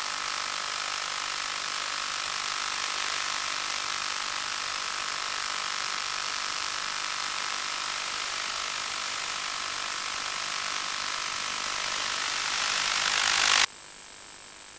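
Static hiss on the audio channel of an analog 1.2 GHz FPV video receiver, a steady noise with a thin whine through it, the sign of a weak, noisy link on the receiver with the patch antenna. It swells slightly and then cuts down sharply about 13.5 seconds in to a quieter hiss with a faint high tone, as the diversity ground station switches to the other receiver.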